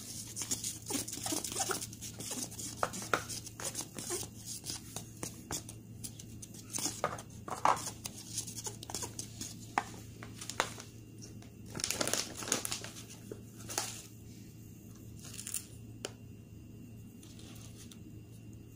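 Sugar poured from a plastic tub onto flour in a plastic mixing bowl, hissing for the first few seconds. Then scattered scratchy rustling and crinkling of plastic packets as more dry ingredients are shaken in, over a steady low hum.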